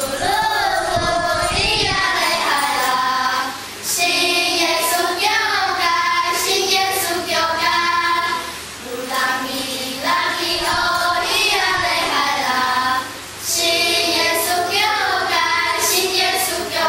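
A group of young children singing a song together, with brief breaks between phrases about every four to five seconds.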